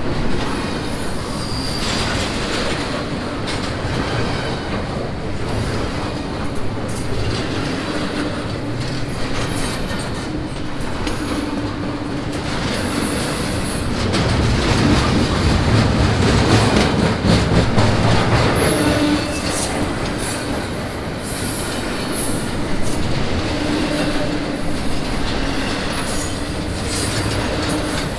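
Train passing close by, its cars clattering over the rail joints in a steady stream of clicks, with a thin, high wheel squeal near the end.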